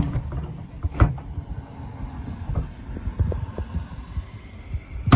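A few sharp clicks and knocks, right at the start, about a second in and again at the end, with lighter ticks between, from hands working the plastic retaining clips of a 2007 Chevrolet Silverado tailgate latch, over a low rumble.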